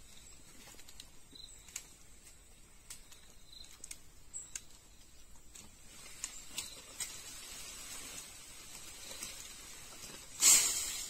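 Light scrapes, taps and rustling of people climbing a tree, with shoes and hands on bark and branches and leaves shaking, over a faint steady hiss. A short, much louder rustle comes near the end.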